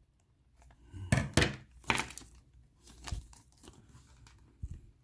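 Plastic packaging crinkling and tearing as a bag of miniatures is handled and opened, in several short bursts. The loudest bursts come about a second in and again at two seconds.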